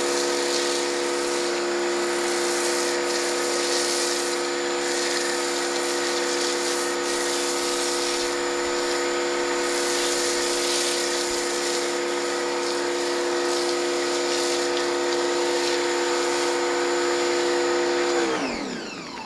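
Pressure washer running with a steady motor whine under the hiss of a Griot's Boss foam cannon spraying foam. Near the end the whine falls in pitch and fades as the motor winds down.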